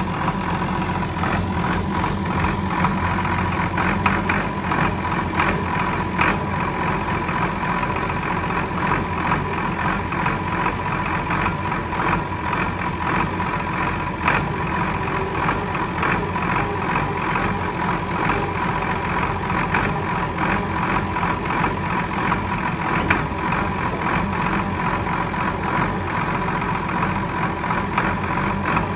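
Allis-Chalmers 185 tractor's diesel engine running steadily, with a steady high whine over it, while the Woods 340 front loader's bucket is raised and tilted.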